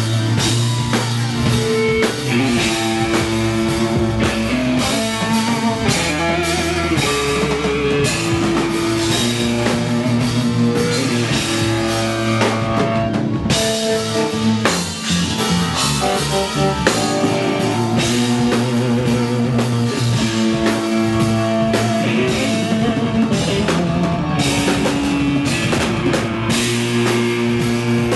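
Live funk band playing an instrumental passage: drum kit keeping a steady beat under electric bass and guitar.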